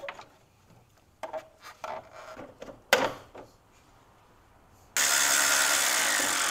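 A few handling clicks and a sharp knock of parts being fitted, then, about five seconds in, a cordless electric ratchet running steadily and loudly, driving a bolt home during reassembly.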